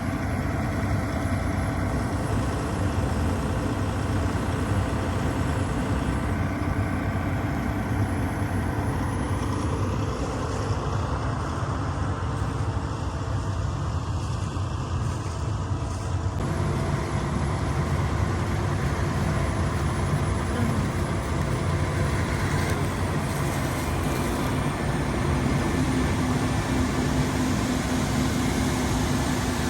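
Combine harvester running steadily while harvesting corn: a constant machine drone with steady tones in it, which shifts in tone abruptly about halfway through.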